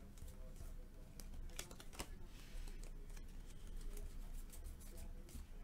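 Football trading cards being flipped through by hand: faint, irregular clicks and slides of stiff card stock against card.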